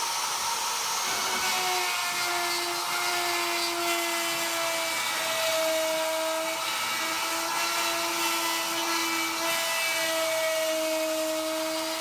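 Homemade CNC router running, its stepper motors whining in two steady tones that step to a slightly different pitch every second or two as the axes change speed, over a steady high hiss.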